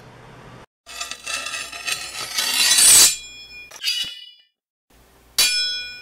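Edited outro sound effect: a whoosh builds up for about two seconds and cuts off, then comes a brief metallic clink, and near the end a sharp metallic clang that rings on and fades.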